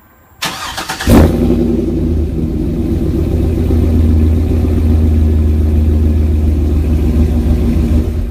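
A car engine is cranked by its starter, catches about a second in with a loud burst, then runs steadily.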